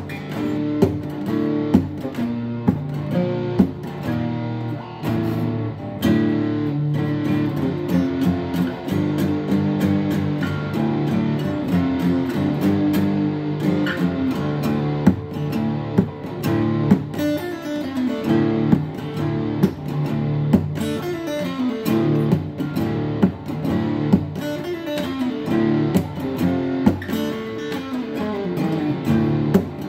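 Acoustic guitar played steadily: chords strummed with frequent sharp strokes over ringing notes.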